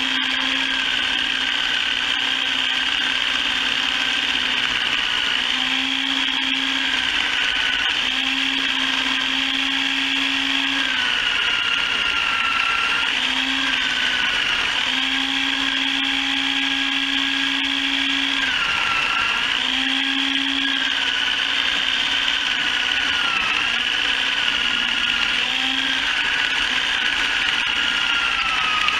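Motor-driven chicken plucker running steadily. Its whine dips briefly in pitch and recovers every few seconds, and a lower hum cuts in and out.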